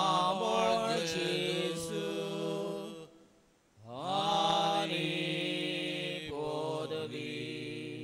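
A single voice singing a slow devotional hymn to Jesus in long, held notes: two phrases of about three and four seconds, with a short breath between them.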